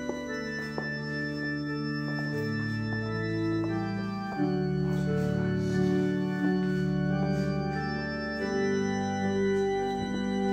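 Organ music: slow, sustained chords that change every second or two.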